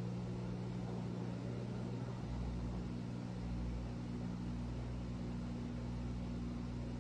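Steady low hum of a running appliance motor, a few even tones over a low rumble, cutting off suddenly at the very end.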